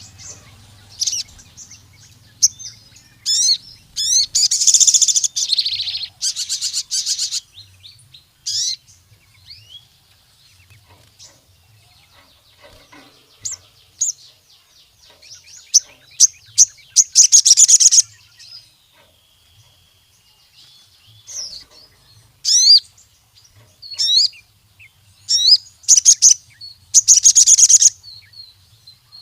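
A sogon sunbird singing energetically: bursts of very high, rapid trilling chatter mixed with quick sweeping chirps, coming in spells with short pauses between them.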